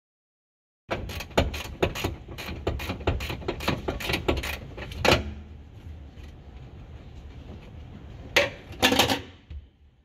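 Ratchet spanner clicking as it is worked back and forth on the 17mm bolt holding the seat-belt reel: a quick, irregular run of clicks, about four or five a second, for around four seconds. Two louder knocks follow near the end.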